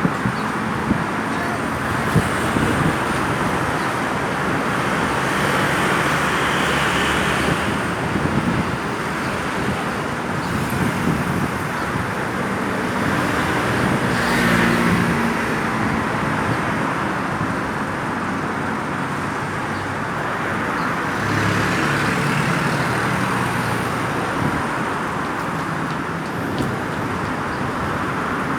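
Steady road traffic: engine and tyre noise from a stream of vehicles, swelling three times as vehicles pass close by. No siren is heard.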